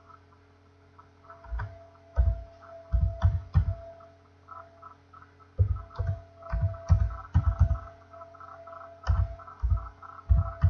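Computer keyboard typing in irregular bursts of keystrokes, each with a dull thump, pausing twice, over a steady electrical hum.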